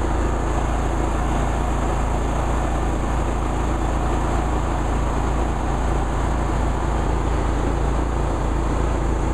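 Riding lawn mower engines running steadily at speed, a low, even drone with no let-up.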